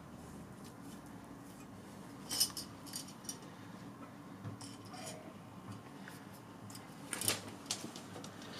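A few short, faint clicks and scrapes as a razor-blade bread lame is handled and drawn across a proofed dough loaf to score it, the sharpest about two and a half seconds in and near the end. A steady low hum runs underneath.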